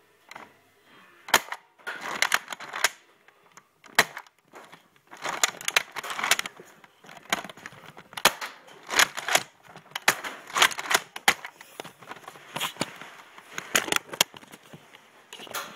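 Handling noise from the recording device as it is grabbed and moved: rustling bursts mixed with sharp clicks and knocks at irregular intervals.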